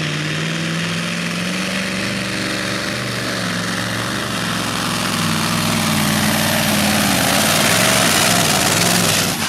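Magirus Deutz supersport pulling truck's diesel engine running flat out under load as it drags the weight-transfer sled. Its note climbs slowly and grows louder toward the end, then cuts off suddenly.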